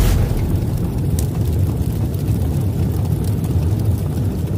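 Sound-design rumble for an animated smoke-burst intro: a steady, deep rumble with its weight low down and no beat or tune.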